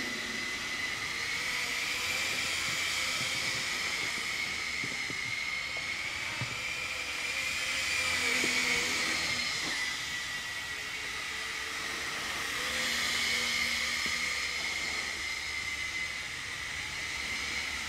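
MJX F647 micro RC helicopter in flight: its small electric motor and single rotor give a steady high whine over a hiss. The pitch wavers slightly and the sound swells and fades as it moves about, louder about eight and thirteen seconds in.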